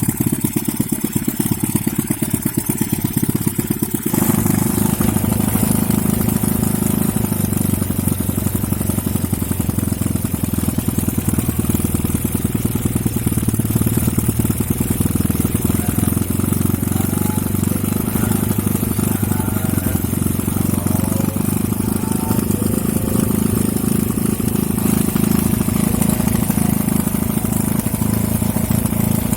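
Homemade four-stroke engine built from a refrigerator compressor, running steadily with a rapid, even firing beat. About four seconds in its sound changes, taking on a fuller, higher tone.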